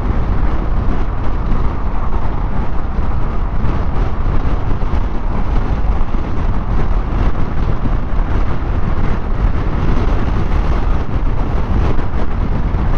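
Steady mix of Yamaha NMAX scooter engine, tyre and road noise, with wind rushing over the microphone at riding speed. No single event stands out.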